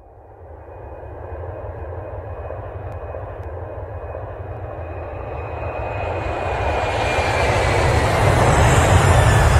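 Jet airliner engines growing steadily louder as the plane approaches and passes: a deep rumble with a thin high whine that dips slightly in pitch near the end.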